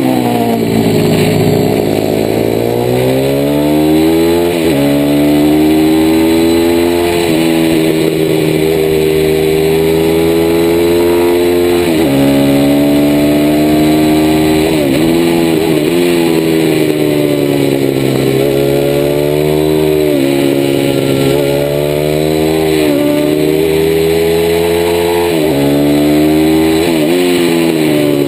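DHZ Outlaw 160cc minimotard's single-cylinder four-stroke engine at race pace, heard from onboard: its pitch climbs under throttle and then drops abruptly, again and again, through gear changes and corners.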